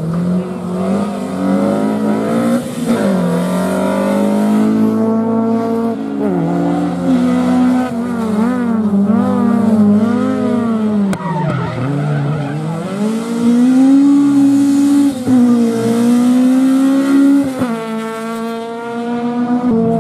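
Rally car engine driven hard on a stage, revving up and down with throttle and gear changes. Its note dips sharply about twelve seconds in, then climbs again.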